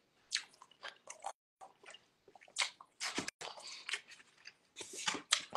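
A person chewing food close to the microphone, with short, irregular mouth clicks.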